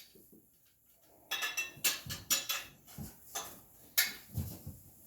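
Small hard toy pieces clicking and clattering: a string of about eight sharp knocks over three seconds, after a quiet first second.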